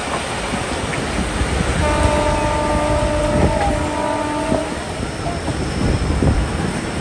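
Diesel locomotive's air horn sounding one steady chord for about three seconds, starting about two seconds in, over the running rumble of the train. The locomotive is Pakistan Railways GMU-15 number 4801.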